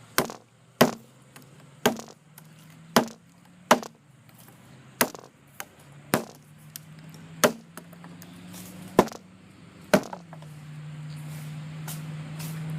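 Small hatchet blade of a Sheffield 14-in-1 multi-tool chopping into a branch: about ten sharp, separate chops, roughly one a second. After the last chop a steady low hum grows louder.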